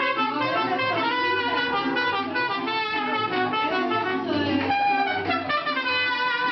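Mariachi band playing live: trumpets carry the melody over guitars, with a bass line stepping from note to note underneath.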